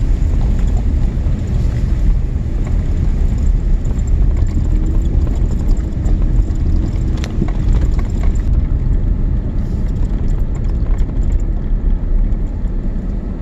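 Vehicle driving on a logging road: a steady low rumble of road and engine noise with wind noise.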